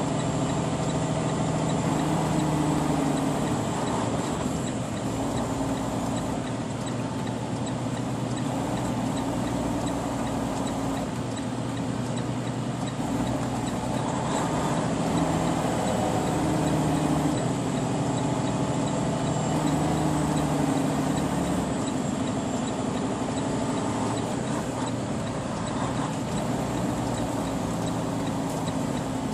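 Freightliner Cascadia semi-truck's diesel engine running under load while pulling a fully loaded trailer, heard from inside the cab. It is a steady drone whose pitch shifts a little now and then.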